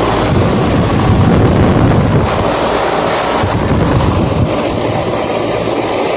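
Outdoor air-conditioning condenser unit running: a steady rush of fan noise with a low hum underneath and a faint high whine.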